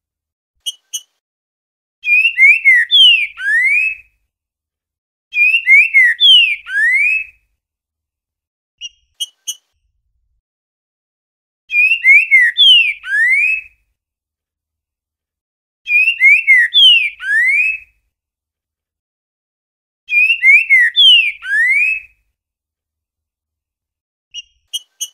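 Green-winged saltator (trinca-ferro) singing its 'boiadeiro' song: five loud phrases of slurred whistled notes, each about two seconds long and a few seconds apart. Short high chips come in between.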